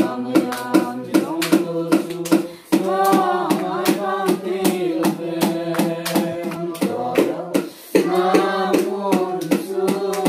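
A group of voices singing a hymn together in held notes, with a steady percussion beat of about three strokes a second underneath; the singing breaks off briefly twice between lines.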